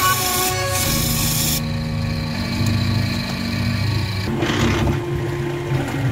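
Small bench wood lathe running with a steady motor hum. A hiss fills the first second and a half, and a short rasp comes a little after four seconds.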